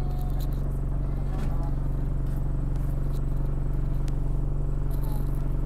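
Bus engine running steadily, a low drone heard from inside the passenger saloon, with a couple of sharp clicks or rattles from the bus interior about a second and a half in and again near four seconds.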